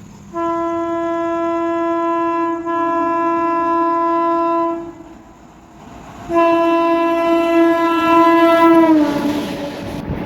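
Passing Indian Railways train sounding its horn in two long blasts, the second dropping in pitch as the train goes by. The wheels then clatter over the rails.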